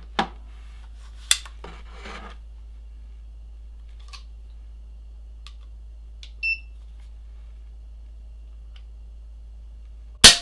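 AEA Element .22 PCP air rifle's trigger pulled with a trigger pull gauge. There are light clicks of handling at first and a short beep about six and a half seconds in. Near the end the trigger breaks and the action lets go with one very loud, sharp snap and brief ringing after.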